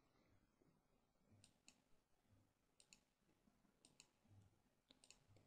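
Faint computer mouse clicks, each a quick press-and-release pair, about once a second, as keys are clicked on an on-screen calculator emulator.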